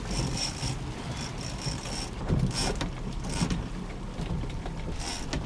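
A boat's engine rumbles low under wind on the microphone. Short whirring bursts come from a heavy offshore fishing reel, several times, as line is worked against a hooked fish. There is a louder slosh of water about two and a half seconds in.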